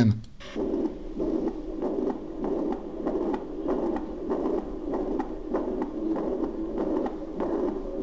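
Recorded heart sounds of mitral regurgitation played back: a whooshing murmur across each systole, pulsing with every heartbeat in an even rhythm.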